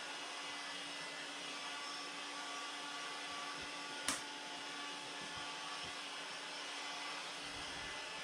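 Steady whirring and hissing of a motor-driven machine running without change, with a single sharp click about four seconds in.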